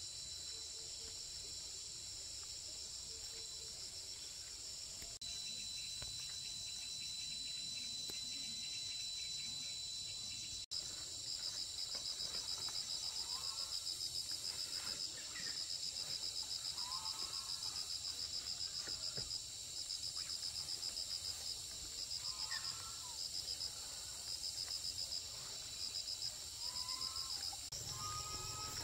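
Crickets and other insects chirping in a steady high chorus. About a third of the way in, a louder pulsed cricket trill starts, breaking off and resuming several times, with a few short lower chirps over it.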